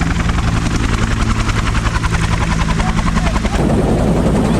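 Helicopter running steadily, its engine drone under a rapid, even beat from the rotor blades. The sound changes abruptly about three and a half seconds in, the fast beat dropping away.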